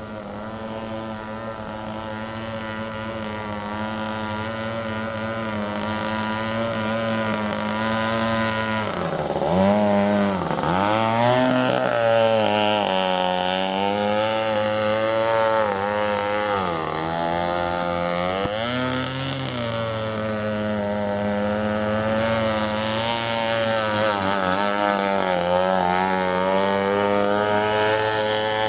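Homemade RC boat's 21.2 cc Echo string-trimmer two-stroke engine with a straight pipe, running at speed. The engine note drops and climbs again several times, most deeply about a third of the way in, and grows louder over the first third.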